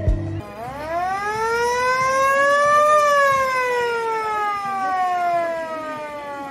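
An antique fire engine's siren winds up to a peak about three seconds in, then slowly winds down.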